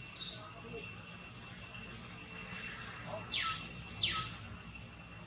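Steady high-pitched insect drone with faint pulsing chirps above it. Two quick calls sweep sharply downward about three and four seconds in. A short sharp sound comes right at the start.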